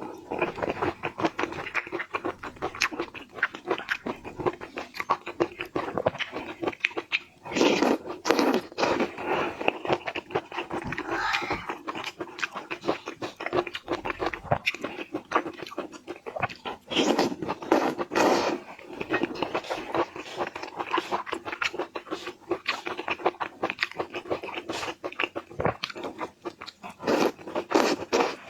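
Close-miked eating: a person chewing and crunching shrimp, a dense run of quick wet clicks and crunches, with louder crunching bites about eight seconds in, around seventeen seconds and near the end.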